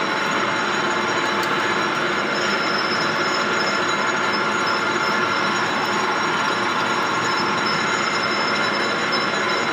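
Sanwa metal lathe running: a steady mechanical whir with several high, steady whining tones, unchanging throughout.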